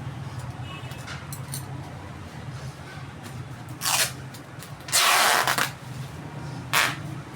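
Packing material being handled: three short rasping bursts, the longest and loudest about five seconds in, over a steady low hum.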